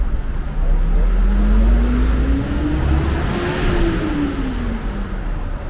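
A motor vehicle passing close by on the street. Its engine note rises as it comes closer, peaks about three and a half seconds in, then drops away as it passes, with a rush of tyre noise at the closest point over a low rumble.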